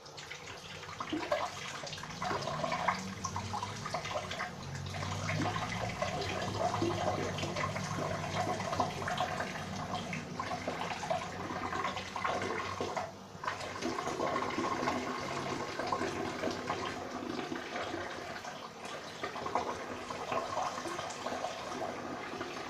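A stream of urine splashing into toilet water. It starts at once, runs on steadily and dips briefly about halfway through.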